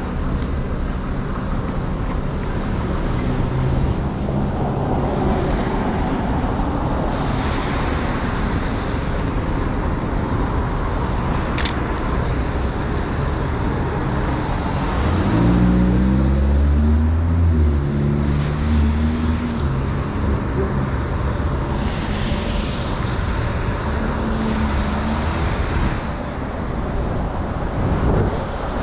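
Downtown city traffic on wet pavement: a steady hiss of tyres and engines. About halfway through, a large vehicle's engine rises in pitch and then eases off as it pulls past, and a single camera-shutter click sounds near the middle.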